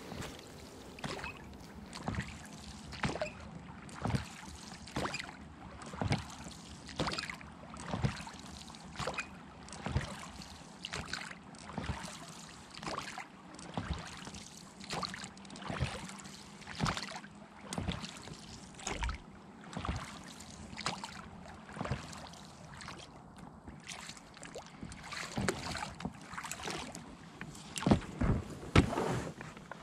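Oars working a small inflatable boat, a short splash-and-knock stroke about once a second at a steady pace. Near the end louder rustling and scraping as the bow pushes into a grassy bank.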